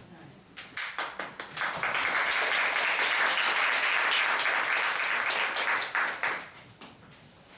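Small audience applauding: a few scattered claps that quickly swell into steady clapping, then die away about six seconds in.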